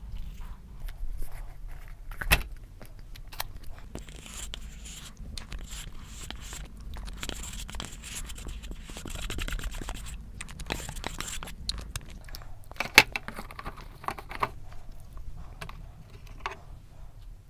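A tub of Binggrae Together ice cream is turned over and shaken until the block of ice cream drops into a glass bowl with a knock about two seconds in. Then ice cream is scraped from the inside of the paper tub for several seconds, and there is a sharp knock near the end.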